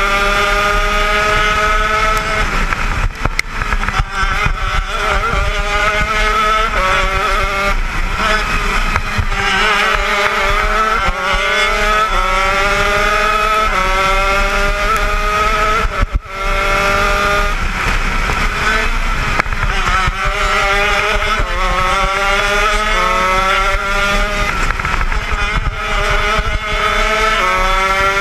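80cc two-stroke shifter kart engine heard on board at racing speed, its pitch climbing hard and dropping back at each gear change. There are short lifts off the throttle about three and sixteen seconds in.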